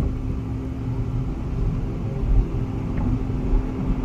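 Steady low rumble of a car driving, road and engine noise heard from a dashcam inside the cabin.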